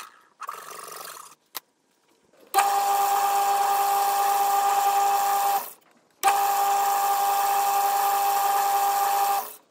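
Small metal lathe running, twice for about three seconds each with a short stop between, a steady high whine from its drive over a dense mechanical hum, as it turns a plastic bar to make a brake-caliper bush.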